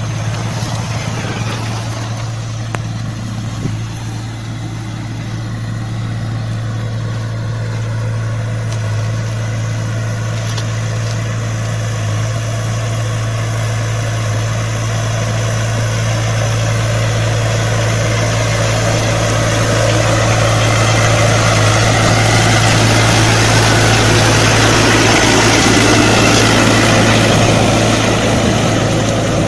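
Diesel engine of a Case backhoe loader with a mounted grader blade, running steadily while working a gravel road. It grows louder through the second half as the machine comes close.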